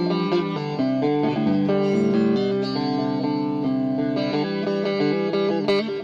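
Electric guitar played through a Plethora X3 chorus effect and a Bugera 333XL valve amp: a run of changing notes over held, sustained notes.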